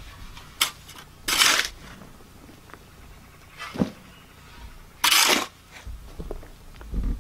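A long-handled shovel scooping and tossing sandy soil to backfill around a plastic septic tank. There are two loud scrapes of the blade through the dirt, about a second and a half in and about five seconds in, with fainter scuffs and a soft knock between them.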